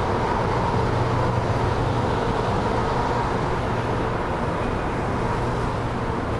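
Steady city street traffic noise with the continuous hum of a running vehicle engine, the hum easing off about two-thirds of the way through.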